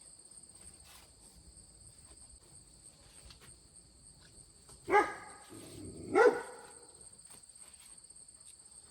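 A dog barks twice, a short loud bark about five seconds in and another just over a second later, over a steady high trill of insects.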